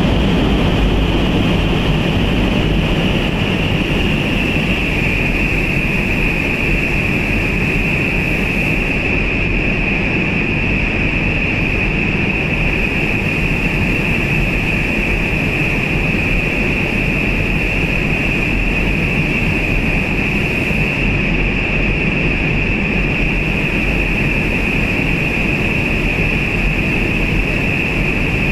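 Fans of a large wind chamber running to spin up an indoor tornado vortex: a steady rush of air with a high whine that drops a little in pitch about four seconds in, then holds.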